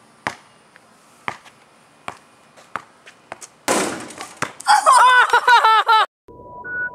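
A few sharp knocks, then a loud clatter as the basketball shot reaches the backboard and rim, followed by a boy's excited shouting in celebration.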